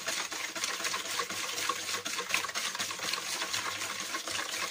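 Wire whisk beating a thin milk mixture in a plastic bowl: steady liquid sloshing with rapid light clicks of the wires against the bowl.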